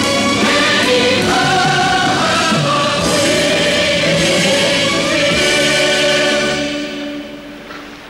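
Music with a choir singing, ending on a long held chord that fades away near the end.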